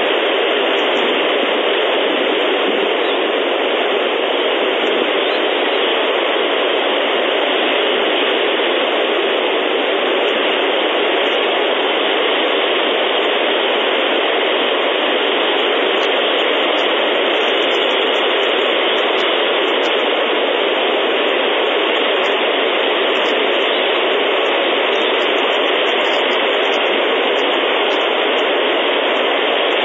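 Steady, even static-like hiss from the nest camera's audio, with no eagle calls heard.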